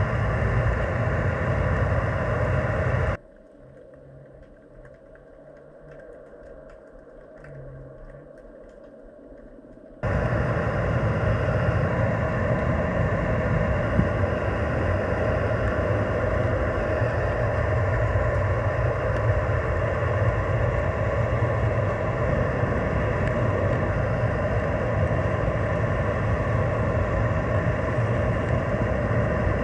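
Steady underwater rumble with a constant droning hum, picked up by a submerged camera. It drops abruptly to a much fainter low hum about three seconds in, then snaps back to full level about seven seconds later.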